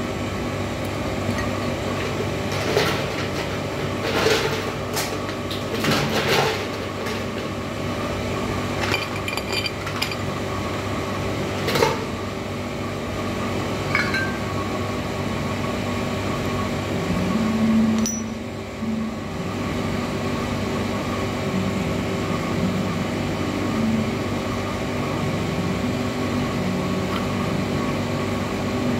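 Ice cubes dropped into a glass tumbler of muddled lime and mint, a string of clinks and knocks over the first half, with a steady electrical hum underneath.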